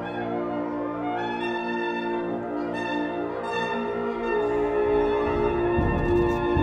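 Wind ensemble (symphonic band) holding sustained, layered chords built on the overtone series of B-flat, with brief high flourishes above them, swelling somewhat louder in the second half.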